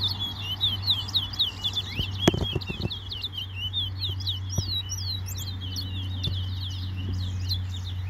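Caged songbirds singing a fast, continuous twittering song of quick, high chirps and sweeps, their songs being counted in a bird singing contest. A few short knocks sound about two to three seconds in, over a steady low hum.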